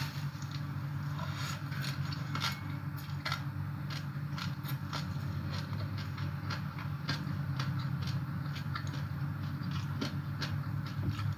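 A person chewing papaya salad, raw vegetables and rice noodles close to the microphone, with many scattered small crunches and wet mouth clicks, over a steady low hum.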